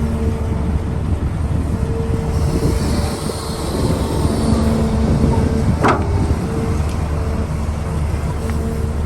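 Heavy diesel machinery running steadily with a deep rumble, and one sharp knock about six seconds in.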